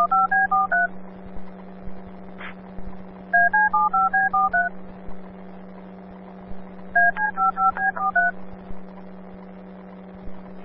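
DTMF paging tones over a fire dispatch radio channel: a run of about ten short, quick two-note beeps, repeated identically about every three and a half seconds (the end of one run, then two full runs), over a steady low hum. The sequence is the dispatcher's station-alerting tones sent between the call and its repeat.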